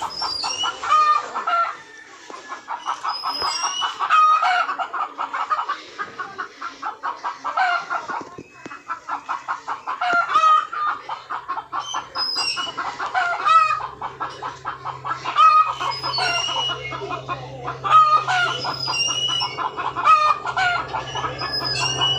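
Domestic hens clucking in fast runs of short clucks, broken now and then by longer, drawn-out calls.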